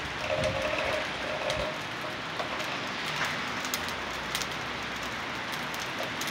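Heavy rain falling in a steady hiss, with scattered close drops ticking sharply on hard surfaces.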